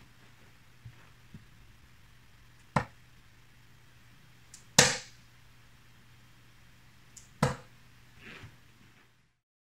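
Three steel-tip darts (Royal Darts Queen, 21 g) thrown one after another into a bristle dartboard: three sharp thuds about two seconds apart, the middle one loudest.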